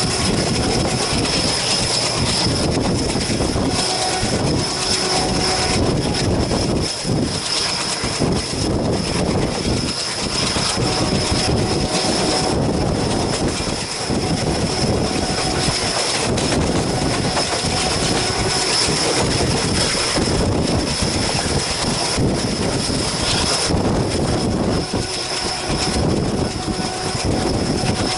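Trains running at speed: a steady, loud rumble of wheels on rail with a thin high whine held over it.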